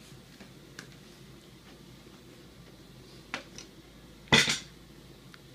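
A dog playing with a plush toy rat on carpet: mostly quiet, with a light tap about three seconds in and a brief, louder burst of rustling noise a little after four seconds.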